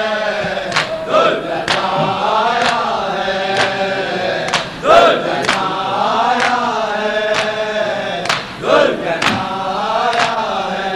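Men chanting a Shia noha refrain together, with slaps of hands on bare chests (matam) keeping time about once a second. Louder cries rise out of the chant three times.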